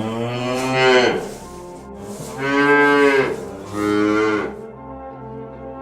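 Cow mooing: three long moos, the first fading out about a second in, the next two following a second or so apart.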